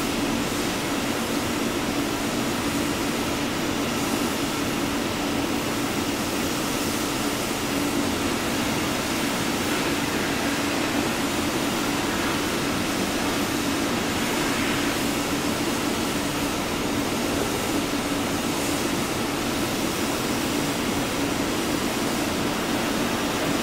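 Steady mechanical drone with a constant low hum and an even hiss over it.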